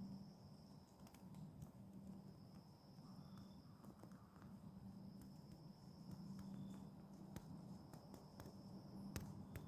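Near silence in the woods: a faint steady high-pitched tone and a low hum, with a few soft ticks.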